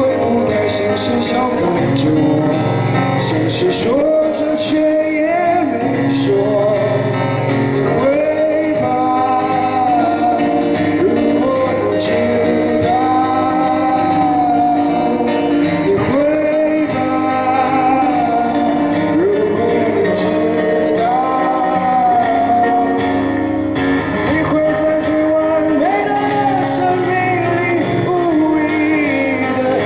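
A man singing a slow song while playing an acoustic guitar, amplified through a microphone and stage speakers.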